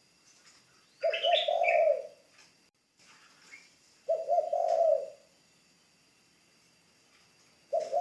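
Spotted dove cooing, a ground-decoy bird used to call in wild doves: a low coo phrase about a second in, another about three seconds later, and a third starting near the end.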